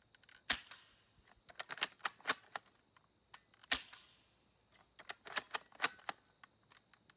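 Butane-gas airsoft bolt-action sniper rifle firing three sharp shots about three and a half seconds apart. Between the shots come quick runs of lighter mechanical clicks.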